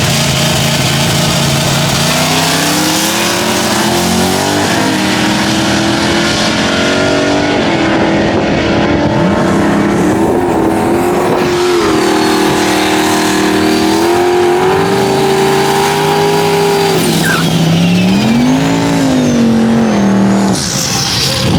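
Car engine under load, its revs climbing and dropping back several times.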